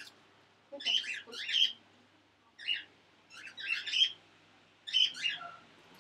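A bird squawking and chirping in short, high calls, grouped one to three at a time, with pauses of about a second between groups.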